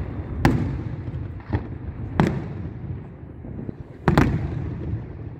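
Aerial firework shells bursting overhead: about four sharp bangs, each trailing off in a short low rumble, the loudest about four seconds in.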